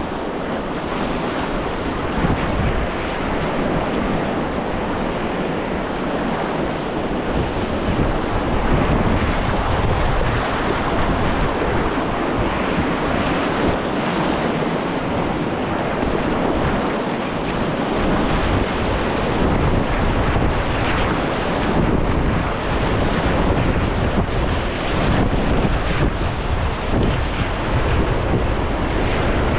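Whitewater rapid rushing and splashing steadily, the river running at about 1450 cubic feet per second, with wind buffeting the microphone, heavier in the second half.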